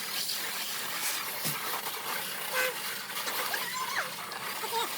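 Sped-up audio of the work footage: a steady hiss with a few faint, short, high-pitched chirps and glides scattered through it.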